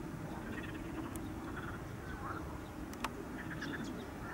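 Steady low rumble of a Boeing 747-400's jet engines at take-off power as it rolls down the runway, with small birds chirping and trilling over it and a single sharp click about three seconds in.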